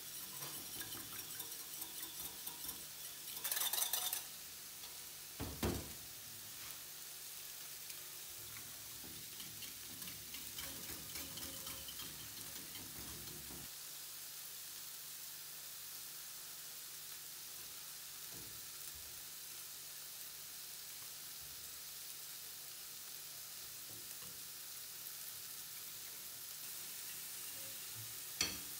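Wire whisk beating an egg in a glass bowl: rapid clicking and scraping of the wires against the glass, with two louder knocks in the first six seconds. After that, lighter whisking gives way to a steady hiss with a few soft taps, and a sharp knock comes near the end.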